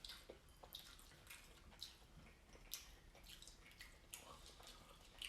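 Faint, wet mouth sounds of someone eating creamy pasta in Alfredo sauce: irregular soft clicks and smacks while chewing.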